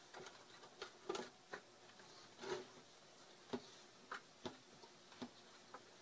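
Faint, irregular soft taps and clicks as hands knead sticky bread dough in a stainless steel mixing bowl, the bowl knocking lightly now and then.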